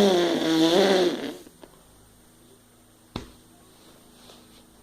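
Mouth imitation of a racing car: lips buzzing while air is blown out, a loud pitched buzz with a lot of breath hiss, wavering slightly in pitch and dying away about a second and a half in. A single click follows near the end.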